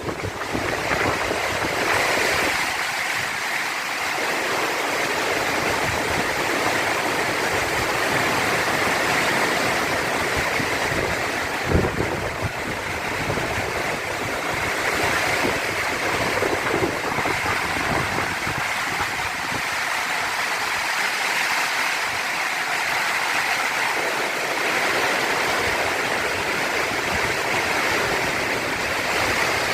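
Heavy storm rain pouring steadily, an even rushing noise without break, with a brief sharp knock about twelve seconds in.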